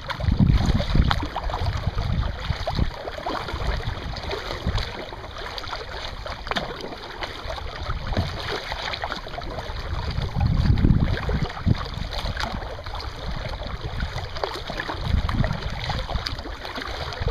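Kayak paddle strokes splashing in the water, with gusts of wind buffeting the microphone near the start, about two-thirds of the way in, and near the end.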